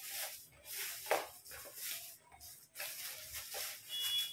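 Plastic packaging crinkling and rustling in a run of short bursts as it is handled and pulled off a tripod.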